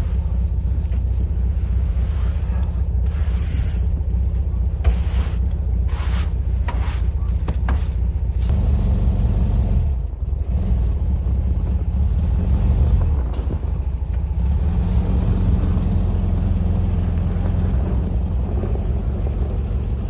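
Classic VW Beetle's air-cooled flat-four engine running steadily, with a snow brush scraping across the car in short strokes during the first several seconds. After about eight seconds the engine note rises and falls as the car moves off through deep snow.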